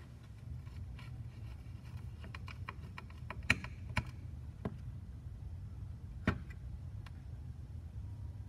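Light clicks and taps of hands fitting a small part onto an opened charger's circuit board: a run of small ticks, the loudest about three and a half and four seconds in, and one sharp click a little after six seconds, over a steady low hum.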